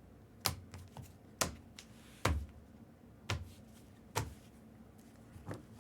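Separate sharp clicks and light taps, about one a second, like keys being pressed on a computer keyboard; one about two seconds in has a duller knock.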